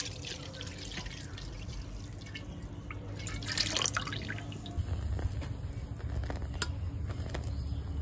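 Milk pouring into a metal kadai, the stream thinning to a trickle and scattered drips, with a short louder rush of pouring near the middle. A low rumble comes in about five seconds in.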